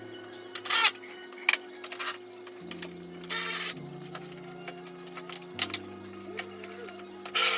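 Background music with a steady low bass line that changes note every second or so. Several short, sharp noise bursts sound over it, the longest about halfway through and another near the end.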